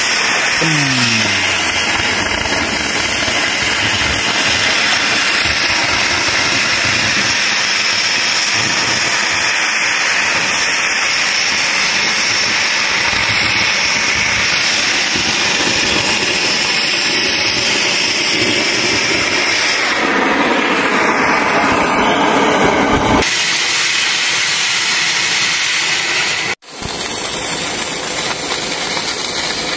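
Oxy-fuel cutting torch running steadily as it cuts through a steel plate, an even hissing rush of gas flame. Near the end the sound breaks off suddenly and a different steady crackling noise follows, arc welding.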